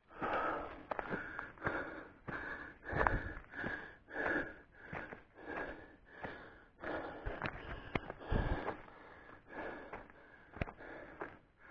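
A hiker breathing hard while climbing a steep trail: quick, rhythmic panting a couple of times a second, the sign of getting winded on the climb. Scattered footsteps scuff on the dirt and gravel underneath.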